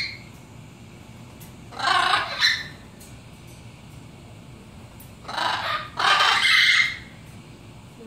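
Parrot giving harsh squawks: one about two seconds in, then a longer squawk in two parts about five to seven seconds in.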